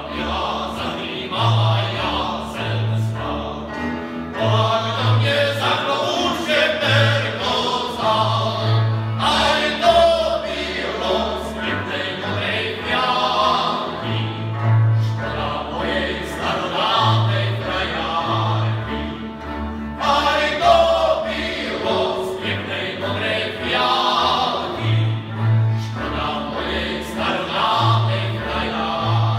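Moravian cimbalom band playing a folk song live: male voices singing over fiddles, cimbalom and double bass, the bass marking out separate low notes.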